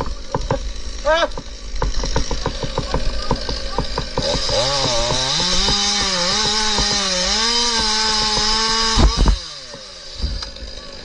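A chainsaw ticks over, then is throttled up about four seconds in and runs hard at high revs for about five seconds. The run ends with a loud thump, after which it is quieter.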